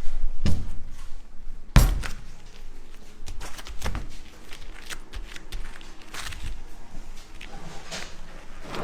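Knocks and clicks of candy pieces and packaging being handled on a worktable as the finished candy is wrapped up, the loudest knock about two seconds in.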